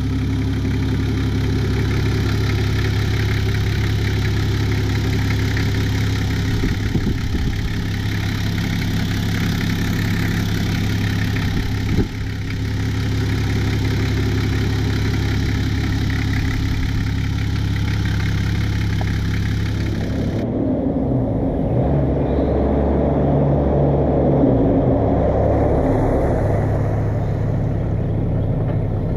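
Toyota Land Cruiser Troop Carrier's 1HZ 4.2-litre inline-six diesel idling steadily. About two-thirds of the way in the sound changes abruptly, and the engine's pitch rises and falls as it revs.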